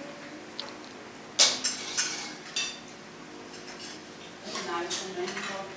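Dishes and cutlery clinking: a few sharp metallic clinks with a short ring, starting about a second and a half in and spread over the next second or so.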